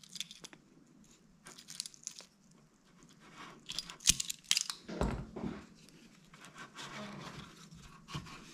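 Hand work with locking pliers and a nylon recoil rope: scattered clicks and rustling scrapes as the rope is drawn up through its guide tube and fed into the plastic pull handle, with a sharp click about four seconds in and a dull knock about a second later.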